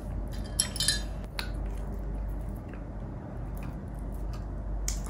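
Eating utensils clinking and scraping against a plate: a few short clinks in the first second and a half and another near the end, over a steady low hum.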